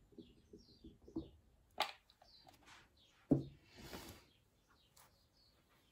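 Faint, short, falling bird chirps in the background. Two sharp clicks, about two seconds and three seconds in, and a brief rushing noise just after are the loudest sounds.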